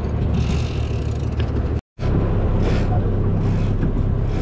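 Boat engine running steadily, a low even hum under the wash of wind and water. The sound drops out completely for a moment about two seconds in.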